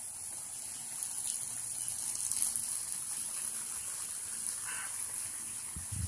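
Lawn sprinkler spraying water over grass: a steady hiss that grows a little louder about two seconds in, over a constant high-pitched drone.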